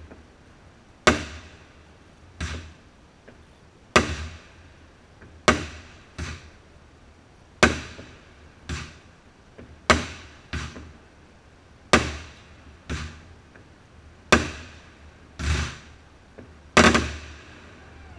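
Aerial fireworks bursting in a rapid volley, about fourteen sharp bangs roughly a second apart, each trailing off in an echo.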